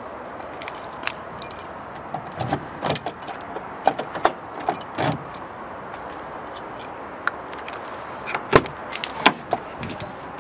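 A bunch of keys jangling in the hand in many small metallic clicks. Near the end come two louder knocks as the driver's door of a 2013 Gazelle Next van is unlatched and swung open.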